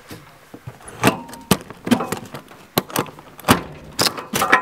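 Irregular plastic clicks, knocks and rattles from a roof-rack storage bin being opened and things being moved around inside it.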